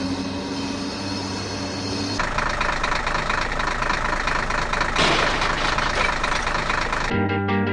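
Truck engine running steadily, its sound shifting to a rougher, noisier run about two seconds in. Music starts just before the end.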